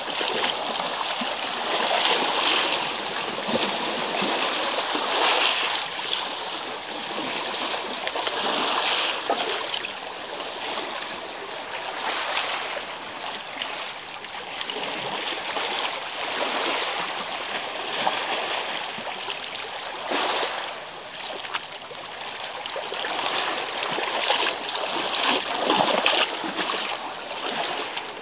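Small sea waves washing and splashing against the rocks and pebbles of the shore: a steady hiss that swells every few seconds.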